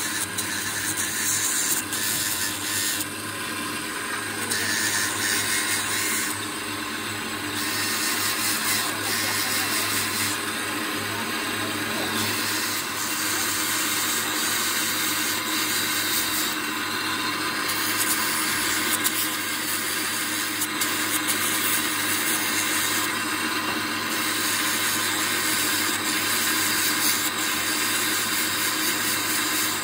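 Motor-driven grinding wheel cutting steel on the teeth of a differential pinion gear, a steady high grinding hiss that holds without a break, part of repairing a broken pinion tooth.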